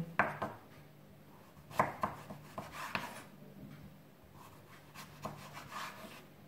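Knife slicing a peeled zucchini lengthwise into thin strips on a wooden cutting board: a few separate soft cuts and taps of the blade on the board, the clearest about two and three seconds in.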